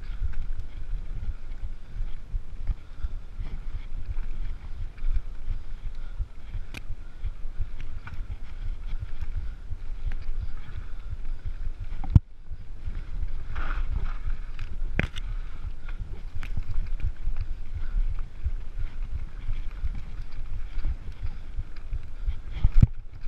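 Mountain bike riding fast down a dirt singletrack: a steady low rumble of tyres on the trail and wind buffeting the microphone, with occasional sharp knocks and rattles as the bike hits bumps.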